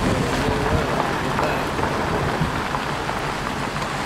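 Steady road noise of a 1947 Ford Super Deluxe sedan on an unpaved grade, heard from inside the car: tyres rolling over gravel and dirt with the engine running underneath.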